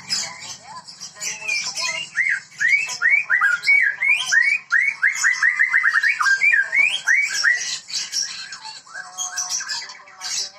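White-rumped shama (Medan murai batu) in full song: a fast, varied run of whistled notes that glide up and down, with a quick series of rising whistles in the middle.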